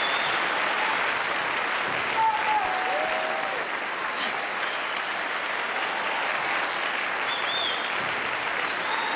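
A large theatre audience applauding steadily, with a few voices briefly calling out over the clapping.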